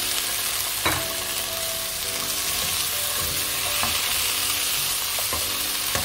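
Chopped onion, tomato and green chilies sizzling as they are stir-fried in a nonstick pan, with a spatula scraping and tapping against the pan and one sharper knock about a second in.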